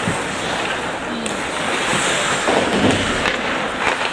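Ice hockey rink sound during play: skates scraping on the ice, with scattered clacks of sticks and puck, more frequent in the second half.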